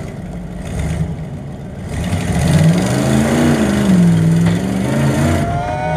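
An off-road race car's engine revving under load: a low rumble at first, then from about two seconds in the revs climb, dip and rise again.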